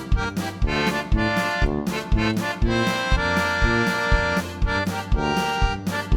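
Background music: an accordion-like melody over a steady beat.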